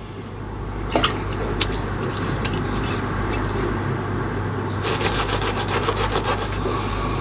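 Tap water running steadily into a sink, with a few light clicks and knocks about a second in and again around five to six seconds in.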